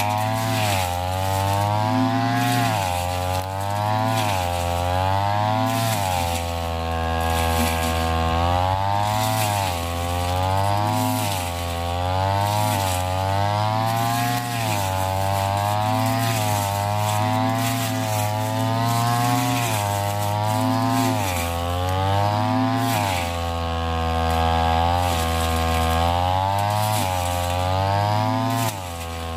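Ryu backpack brush cutter's two-stroke engine running hard while it mows thick, tall grass. Its pitch rises and falls about every two seconds as the blade is swung through the grass.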